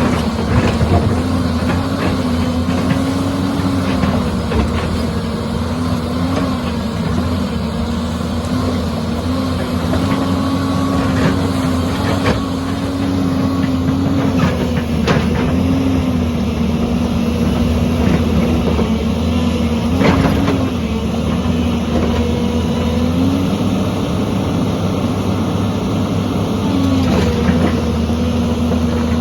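Excavator's diesel engine running steadily, its pitch wavering a little and stepping up and down as the load changes, with a few sharp knocks along the way.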